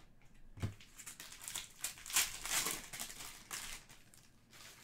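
Foil wrapper of a Panini Prizm soccer card pack crinkling as the cards are worked out and handled, a run of rustles that is loudest in the middle.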